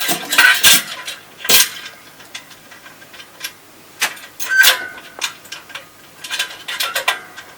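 Scattered metallic clinks and taps, a few with a short ring, as the guard assembly is fitted onto the centrifugal pump's adapter and tightened down; several quick clicks come close together near the end.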